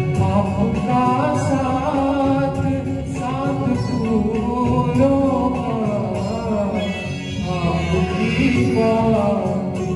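Live duet singing of a Hindi film song into microphones, over instrumental accompaniment.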